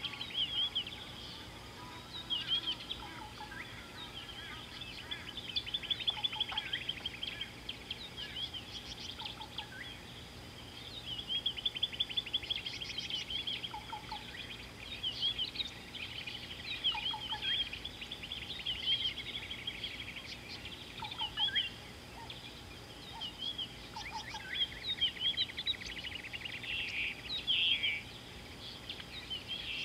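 Wild birds calling and singing together: rapid high chirps and trills in bouts every few seconds, with short lower notes now and then.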